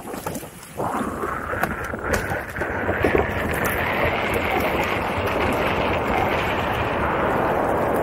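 Wind rushing over the microphone mixed with tyre noise from an electric unicycle rolling along a dirt trail. The noise steps up just under a second in and again near three seconds, then holds steady.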